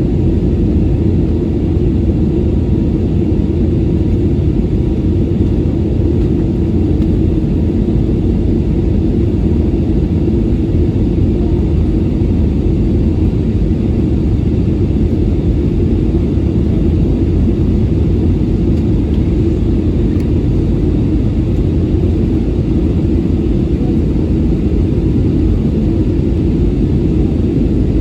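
Airbus A320neo's CFM LEAP-1A engines and airflow as a steady low rumble inside the passenger cabin, with the aircraft in flight after takeoff.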